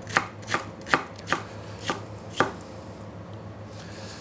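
Chef's knife slicing napa cabbage stalk into strips on a wooden cutting board: about six sharp knife strikes on the board, roughly two a second, stopping about two and a half seconds in.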